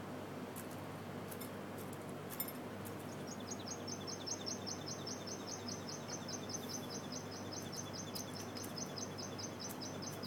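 Indian peacock pecking bird seed from a ceramic bowl, its beak clicking sharply against the bowl a few times in the first three seconds and again near the end. From about three seconds in, a small bird chirps fast and evenly, several high notes a second.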